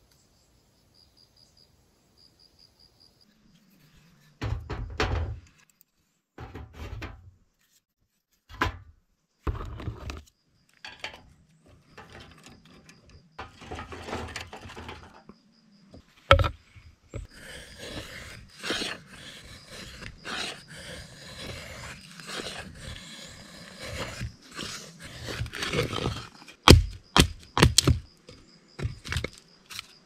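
Campfire being laid by hand: irregular knocks and thuds of sticks and gear on a metal grill stand, with rustling and scraping between them, starting about four seconds in. A faint insect chirps at the start.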